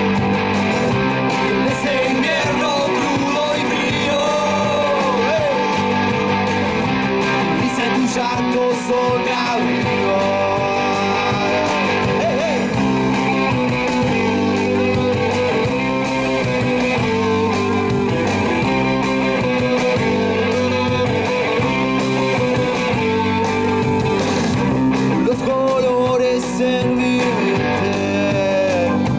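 Live rock band playing: electric guitars, bass and drums, with a singing voice over them.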